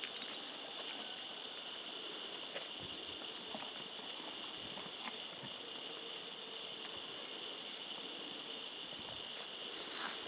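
A steady, high-pitched insect chorus in the summer vegetation, with a few faint, scattered clicks.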